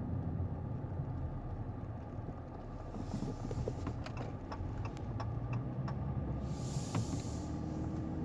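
Steady low rumble of a car, with scattered light clicks and a brief hiss about seven seconds in.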